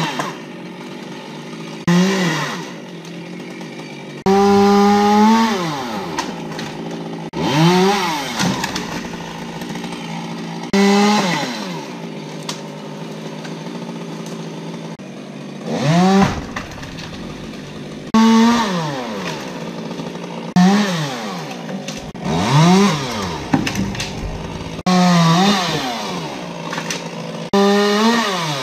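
Chainsaw in the tree being revved up and dropped back to idle about ten times, every two to three seconds, as sections of the conifer are cut off during dismantling.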